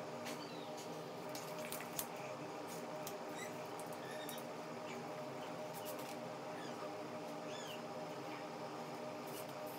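Pencil scratching on drawing paper over a steady electrical hum, with a few small high squeaks and light taps.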